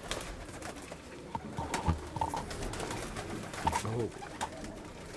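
Domestic pigeons cooing in a loft, low calls about two seconds in and again near four seconds, with scattered rustles and clicks of a pigeon being handled.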